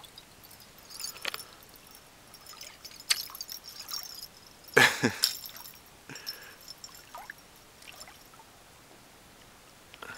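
Water trickling and lapping at the edge of a wet rock shore, with scattered small knocks and a louder sudden thump about halfway through.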